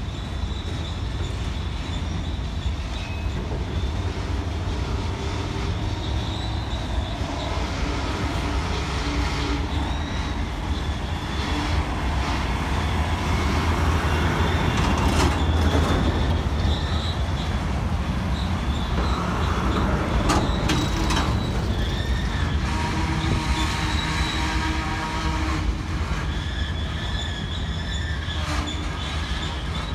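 Freight train of covered hopper cars rolling slowly past: a steady rumble of steel wheels on rail with high-pitched wheel squeal coming and going. A couple of sharp metallic knocks come about halfway through.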